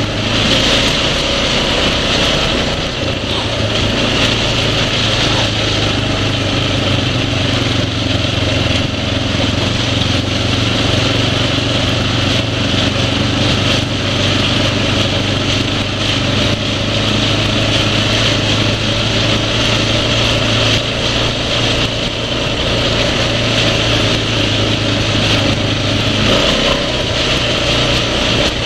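Four-stroke single-cylinder ATV engine running at a steady, even pitch, easing down slightly near the end.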